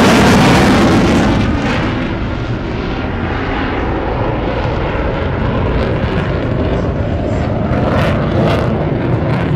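Fixed-wing aircraft engine noise from an airshow flypast, loudest at the start and dying down after about two seconds to a steady rumble.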